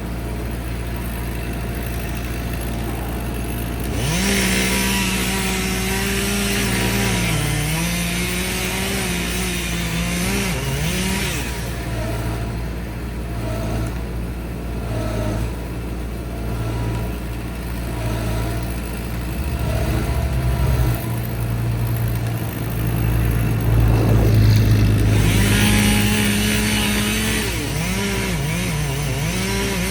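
Chainsaw running at full throttle and cutting in two long stretches, its pitch sagging and wavering as it works in the wood. A steady low engine drone runs underneath.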